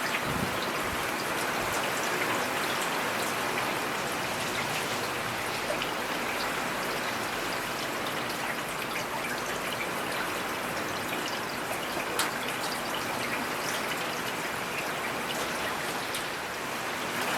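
Steady rain falling in a forest, an even hiss of many drops with scattered individual drop ticks, and some trickling water.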